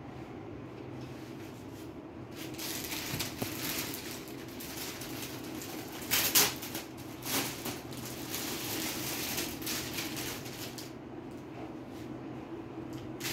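Rustling of cotton fabric and paper cards being handled, with the sharpest rustle about six seconds in, over a steady low hum.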